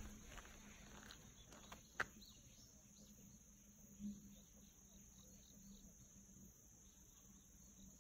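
Faint insects chirping, a steady rhythm of about three chirps a second over a constant high-pitched trill. A single sharp click comes about two seconds in and a soft thump about four seconds in.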